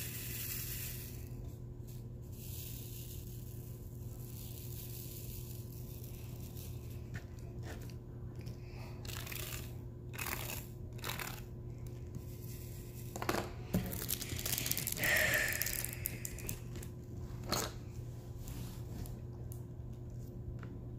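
Diamond painting at work: a plastic drill tray and drill pen handled over the canvas, giving scattered light clicks and rustles of resin drills and plastic, over a steady low hum.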